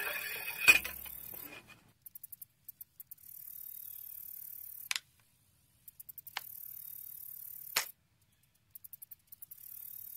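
A single sharp bang with a short low rumble about a second in. It is followed by faint, broken high hissing with quick ticks and three brief sharp swishes.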